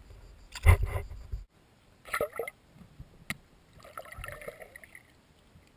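Water sloshing and gurgling around a camera held at and under the lake surface, in several separate bursts; the loudest comes about a second in. A sharp click a little past the middle.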